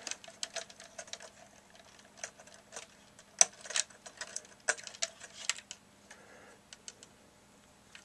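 Irregular small plastic clicks and taps as fingers work a wire-harness connector loose from a circuit board inside a radio's case, the sharpest click about three and a half seconds in.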